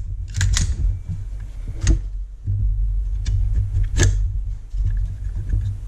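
Sharp metallic clicks of an AR-15 bolt carrier group being worked by hand in the upper receiver, about five spread irregularly, over a steady low rumble. The bolt is closing and locking on a go headspace gauge, a passing headspace check.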